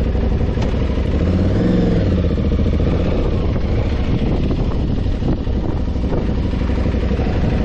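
Aprilia Tuareg 660's parallel-twin engine running while the bike is ridden. The revs rise briefly about two seconds in, then ease back.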